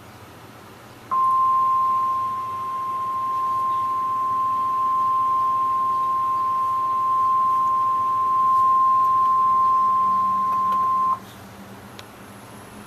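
NOAA Weather Radio warning alarm tone, a single steady high-pitched tone of about 1050 Hz. It starts about a second in, holds for about ten seconds and cuts off sharply, over faint radio hiss. The tone signals that an urgent warning, here a tornado warning, is about to be read.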